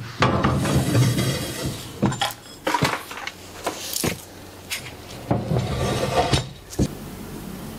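Clattering, rattling and several sharp knocks as a laser engraver with a metal frame is shifted and set down on its work surface.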